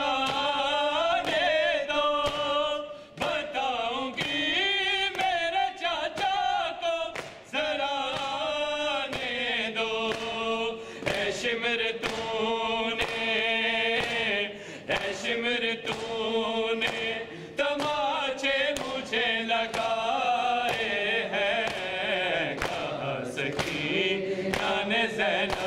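Men's voices reciting a noha, an Urdu lament, as a melodic chant, with regular sharp strikes of hands beaten on the chest (matam) keeping the beat.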